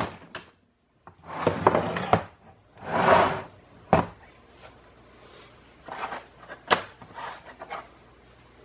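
Handling noises: several short scraping, rubbing bursts with a couple of sharp clacks, as of hard objects being moved about and set down.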